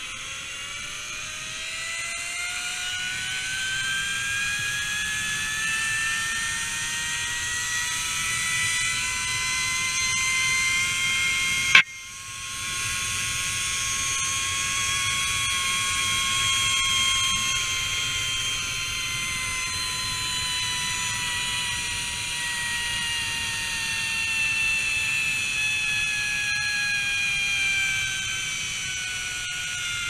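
Zip-line trolley's pulley wheels running along the steel cable: a whine that climbs in pitch as the rider picks up speed, holds, then falls as the trolley slows, over a low rushing noise. One sharp click about twelve seconds in.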